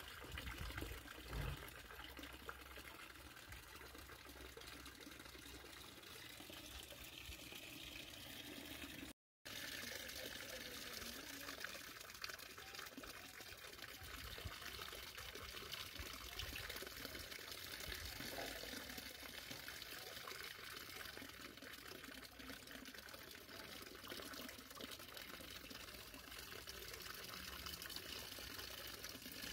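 Water trickling and splashing steadily into a fish pond, cutting out for a moment about nine seconds in.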